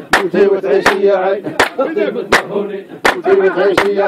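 Men singing a shtawi folk chant, voices held and bending in pitch, over sharp handclaps in a steady beat of about one clap every three-quarters of a second.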